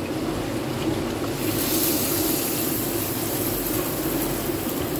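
Steady hiss of a pot of curry gravy simmering on a gas stove. The hiss grows brighter about a second and a half in.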